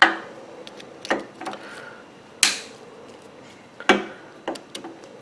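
Diagonal cutters snipping and clicking at plastic cable ties on a scooter's wiring harness: a handful of sharp snaps about a second apart, the loudest midway.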